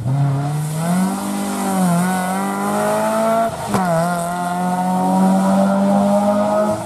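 Rally car engine under hard acceleration: its note climbs, drops sharply at a gear change about three and a half seconds in, then holds at high revs until another shift at the very end.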